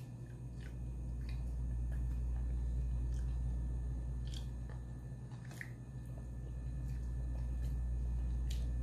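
Soft squishes and small clicks of a person eating rice and fish curry with the fingers and chewing, scattered and faint, over a steady low hum that slowly swells and fades.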